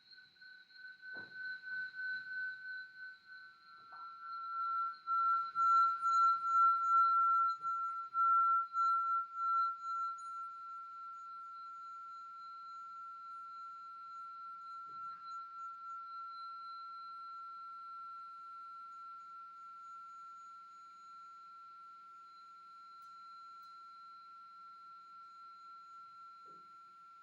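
A single high ringing tone, held on and steady in pitch apart from a slight step down about four seconds in, with a fainter overtone above it. It swells and pulses in loudness for several seconds, then settles to a quieter, even sound. A few faint knocks are heard alongside.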